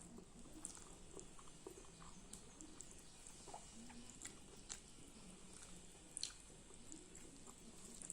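Faint chewing by a person eating, with soft irregular wet mouth clicks and smacks.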